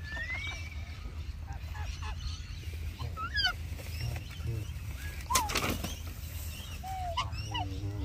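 Mixed park birds calling: many short chirps and whistled glides, with one loud harsh screech a little after halfway, typical of a corella. A short call falling in pitch comes near the end, over a steady low rumble.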